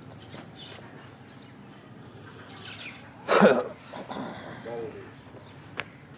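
Small birds chirping on and off. About three and a half seconds in comes one short, loud burst of noise, the loudest sound here.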